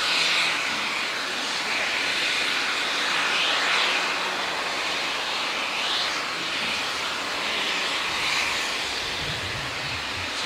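Hunslet Austerity 0-6-0 saddle tank steam locomotive getting under way, giving off a steady hissing roar of steam that swells every two to three seconds.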